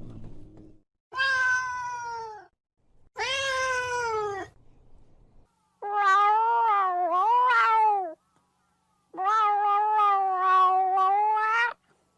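Domestic cat meowing: four long, drawn-out meows with a wavering pitch, the last two lasting about two seconds each, after a brief low rough sound at the start.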